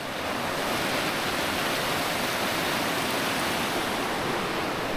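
Fast mountain river rushing over rocks in a steady, even roar of white water.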